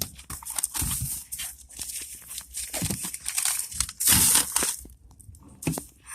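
Packaging being crumpled and handled: irregular crinkling and rustling of paper and plastic, with a few soft knocks.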